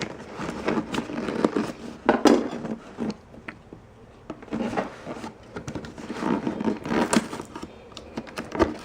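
Tape being peeled and torn off a cardboard box, in irregular rasping and scraping bursts as the cardboard is handled.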